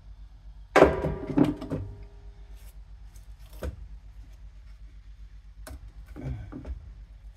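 Dishwasher pump and motor assembly being handled and turned over on a wooden workbench: a clatter of thunks with a brief ring about a second in, a single knock near the middle, and a short rattle of knocks near the end.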